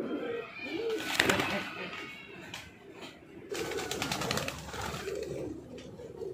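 Pigeons cooing throughout, with the rapid flutter of a pigeon's wings flapping in a handler's hands in two spells, about a second in and again from about three and a half to four and a half seconds.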